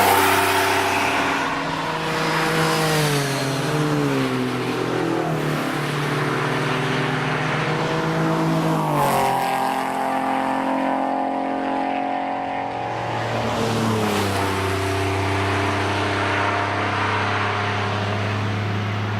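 Several car engines running hard at once and passing by, their pitch repeatedly sliding down as they go past and lift off. Loudest at the start, with a sharp change of note about nine seconds in and a deeper, steady engine note from about fourteen seconds in.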